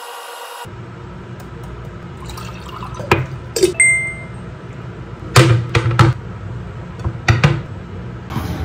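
A drinking glass and a ceramic plate knocking and clinking as they are set down on a wooden tray: several sharp knocks in small clusters. One clink rings briefly.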